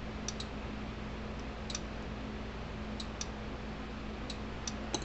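Faint, irregular small metal ticks of a screwdriver turning the terminal screw on a solar charge controller, snugging down a battery wire, over a steady low hum.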